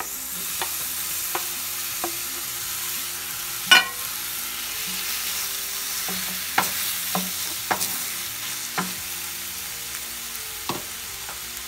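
Chopped tomatoes sizzling as they go into hot oil and fried onions in a stainless steel pan, the hiss rising as they land. A wooden spatula stirs them with a few sharp knocks, the loudest about four seconds in.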